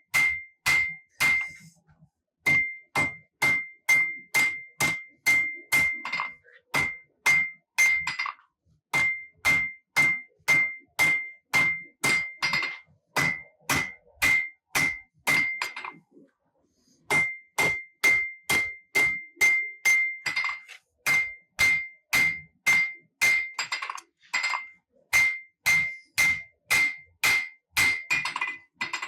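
Hand hammer striking hot Damascus steel on an anvil, a steady run of blows about two a second, each with a short bright ring from the anvil. The blows come in runs with brief pauses between them as the knife blank is drawn out.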